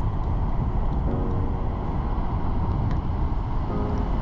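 Steady low rushing roar of Gullfoss, a large waterfall, heard from the viewpoint above the falls.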